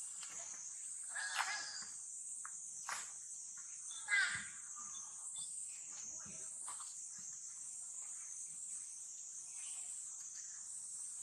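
Two short squeaky calls from a baby monkey, about a second in and about four seconds in, over a steady high hiss with scattered small clicks and rustles.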